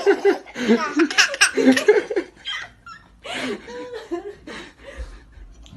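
Laughter in short repeated bursts, loudest over the first two seconds and fainter after about three seconds.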